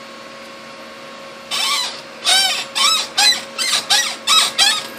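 A chair creaking: a run of about ten short squeaks, each rising and falling in pitch, two or three a second, starting about a second and a half in.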